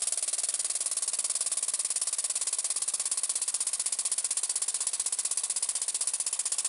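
Small single-cylinder experimental engine with a ball-valve inlet running steadily, its exhaust puffing out through a 1 mm hole instead of an exhaust valve: rapid, even hissing puffs, roughly ten a second.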